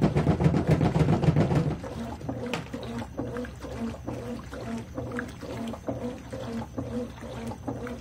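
Consul 13 kg top-load washing machine agitating a load of towels in soapy water: the agitator motor hums through repeated back-and-forth strokes with water sloshing. It is louder for about the first second and a half, then settles into an even rhythm of roughly two strokes a second.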